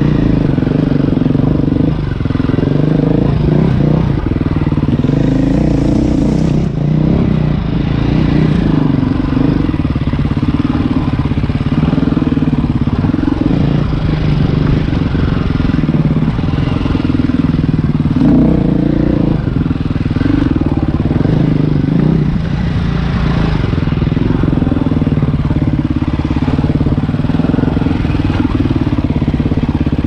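Trail motorcycle's engine running through the whole stretch, its pitch shifting up and down with the throttle.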